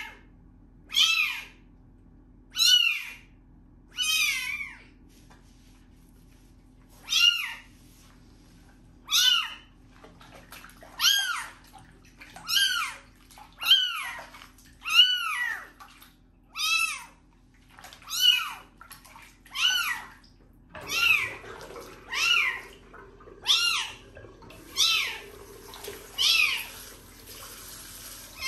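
A kitten meowing over and over while being washed in soapy water, short calls about a second or so apart, each rising then falling in pitch, with a pause of a few seconds after the first few. In the last several seconds a tap runs into the sink under the cries.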